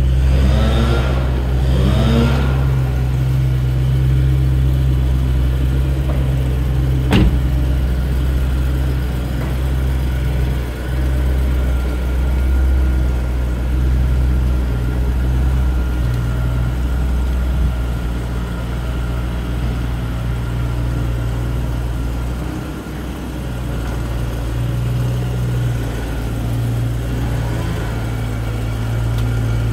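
2013 BMW M3's 4.0-litre V8 idling with a low, steady note. A single sharp knock about seven seconds in is the car's door shutting.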